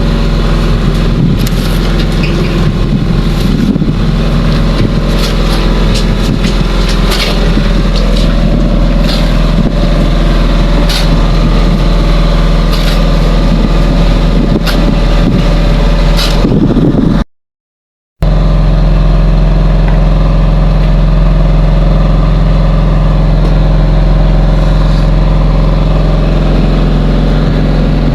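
An engine running steadily with a low, even hum, and scattered sharp knocks over it in the first half. It cuts out abruptly for about a second partway through, then resumes.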